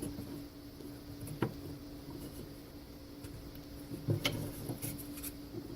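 Light knocks and clicks of wooden frame parts being handled and set into an assembly jig: a single click about a second and a half in, then a short run of knocks near the end, over a steady low hum.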